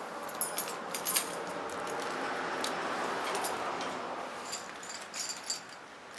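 Keys and other small metal things in a pocket clinking, with rustling, as someone pats and searches his pockets for a key. There are bursts of clinks near the start and again near the end.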